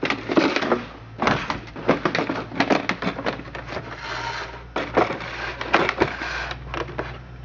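Clattering handling of the chainsaw's hard carry case: a quick run of clicks, knocks and rattles, with a rustling scrape about four seconds in.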